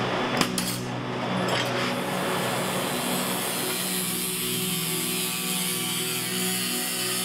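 A few sharp metal clicks as copper pipe is set in a bench vise, then an angle grinder with a cutoff disc running and starting to cut the copper pipe, a steady high-pitched grinding from about two seconds in.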